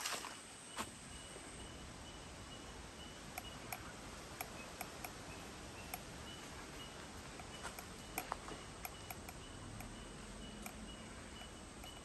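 Tropical forest ambience: a faint, high chirping that repeats steadily over a soft background hiss, with scattered light clicks.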